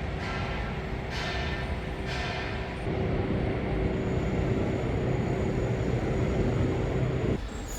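A bell struck in even strokes about once a second over a low rumble. About three seconds in, a louder steady rumble of a passing train takes over, then cuts off suddenly shortly before the end.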